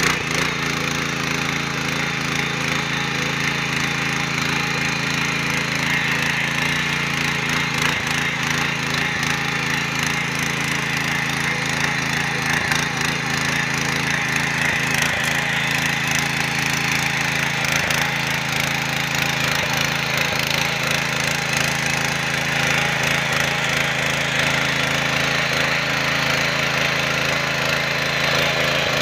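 VST Shakti PTV55G power weeder's small engine running steadily under load, its rotary tines churning through loose soil with a continuous scraping rattle.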